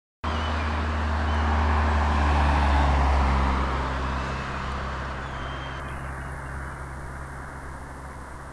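A motor vehicle passing on the road below, its engine hum and tyre noise swelling to a peak about three seconds in and then fading away, the engine note dropping slightly as it goes by. Faint bird chirps sound over it.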